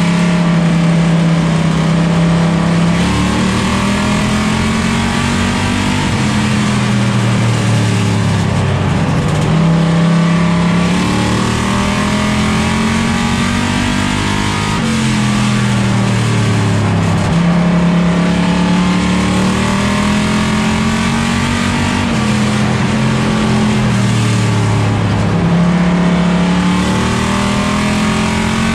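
Plymouth Duster race car's engine heard from inside the cockpit during a race, loud throughout. Its pitch holds high, drops away and climbs back again every few seconds as the driver lifts off and gets back on the throttle.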